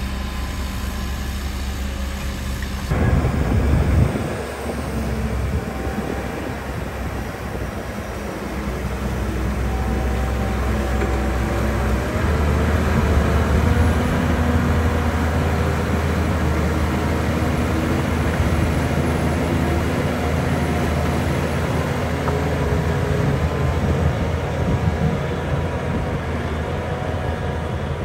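Heavy diesel earthmoving machinery running with a steady low rumble. The sound changes abruptly about three seconds in with a brief loud surge, and the engine works harder and deeper from about twelve seconds in.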